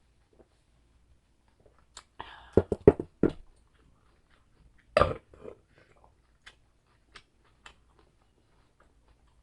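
A person's mouth sounds while eating: a cluster of loud, sudden bursts about two seconds in and another about five seconds in, followed by a few light chewing clicks.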